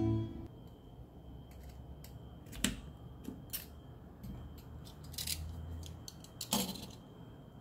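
A kitchen knife cutting a cucumber, with the cut pieces set down on the tabletop: a few scattered soft knocks and clicks, the sharpest near the end.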